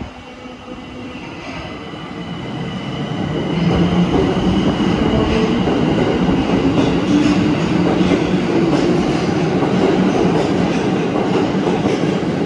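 Tokyo Metro Ginza Line 1000-series subway train pulling out of the station and accelerating past. It grows louder over the first four seconds, then stays loud with a deep rumble, a faint steady motor whine and wheels clattering over the rail joints.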